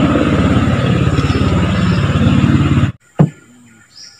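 Small boat engine running steadily, then cutting off abruptly about three seconds in, followed by a single loud knock.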